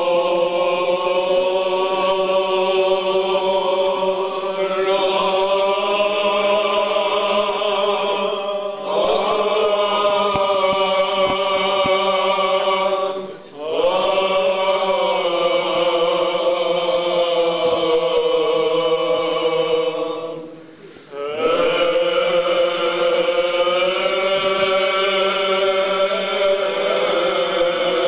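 Greek Orthodox Byzantine chant: voices chanting long, held phrases over a steady low drone (ison), with brief breaks between phrases about a third of the way in, near the middle and about three quarters of the way through.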